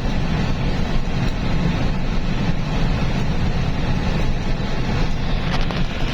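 Engine and road noise from inside the cab of a Hino heavy vehicle cruising on the highway: a steady low rumble, with a few faint clicks near the end.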